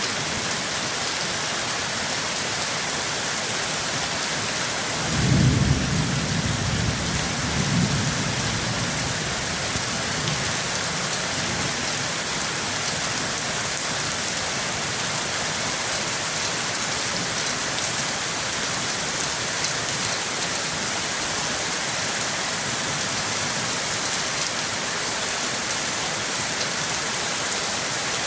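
Steady heavy rain, with a low roll of thunder about five seconds in that fades over the next few seconds.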